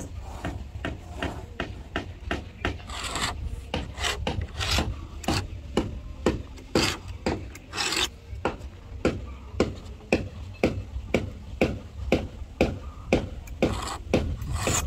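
A hand tool scraping along a wooden boat plank in rhythmic strokes, about two to three a second.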